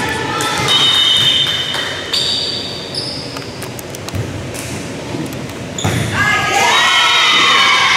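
Echoing gym noise at a girls' volleyball match: high-pitched shouts and cheering voices, loudest in the last two seconds, with several thuds of the ball being struck.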